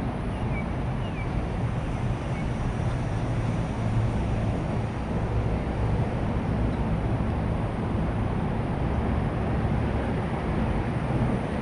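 Steady low rumble of outdoor background noise, with a few faint short chirps in the first second.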